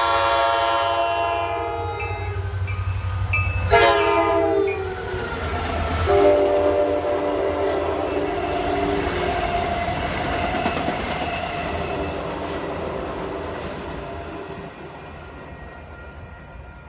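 Passenger train passing close by at speed, sounding its horn: a long blast, a short one that drops in pitch as the locomotive goes by about four seconds in, then a long, lower-pitched blast. Under the horn are the rumble of the locomotive and the wheels on the rails, fading as the train moves away.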